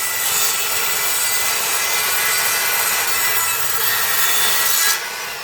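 Guild 1400 W 185 mm circular saw cutting through a piece of hard flooring, a loud, steady sawing noise. It drops in level about five seconds in.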